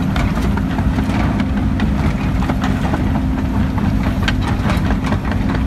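John Deere 330 excavator's diesel engine running steadily, heard from inside the cab as a low, even hum. A few sharp clicks come about four seconds in.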